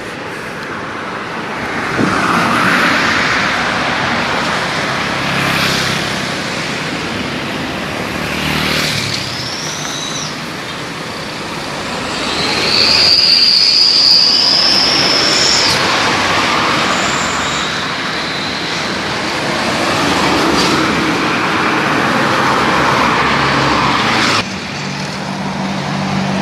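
Road traffic passing: a continuous rush of engines and tyres, with a high, thin squeal lasting about three seconds midway. The loudness drops suddenly near the end.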